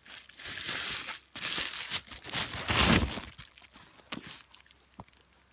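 Plastic packaging crinkling and rustling in several bursts as a steering-wheel quick release hub is taken out of its wrapping, followed by two light clicks near the end.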